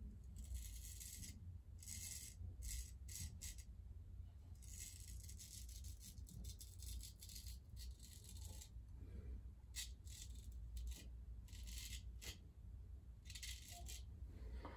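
Freshly honed straight razor scraping through lathered stubble, cutting the whiskers in a series of short strokes, with a longer run of quick strokes around the middle.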